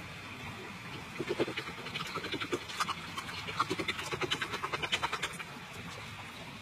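Egg white being beaten by hand in a small bowl: a fast run of clicking strokes against the bowl that starts about a second in and stops a little after five seconds.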